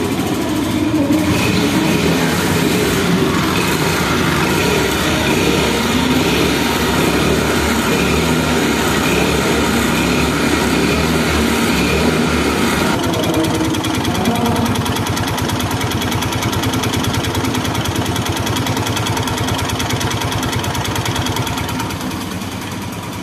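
Hero scooter's single-cylinder four-stroke engine running just after an electric self-start, heard close to the exhaust. It runs steadily, and the seller calls it a sweet sound. The sound thins out about thirteen seconds in.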